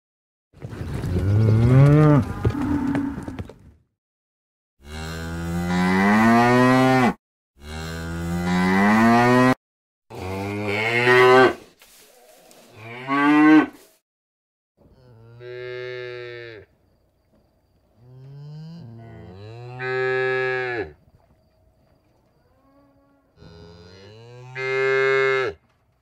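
Domestic cattle mooing: a run of about eight separate moos, each one to three seconds long, with short silences between them and differing in pitch from call to call.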